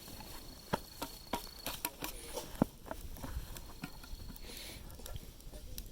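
Scattered light taps and clicks, a few louder ones among them, over a low background with a faint high steady tone that stops early on.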